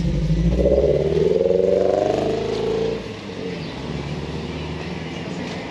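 A car accelerating, its engine pitch rising for about two seconds, then easing off about three seconds in to a steady rush of road noise.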